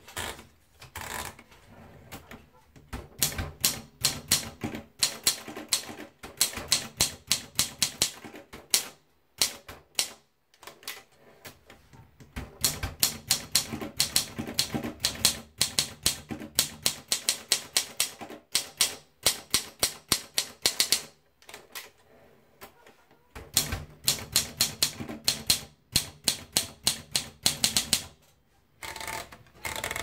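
Olympia SM2 manual portable typewriter being typed on: three runs of quick, sharp key strikes as the typebars hit the platen, one run for each typed line, with short pauses between the lines.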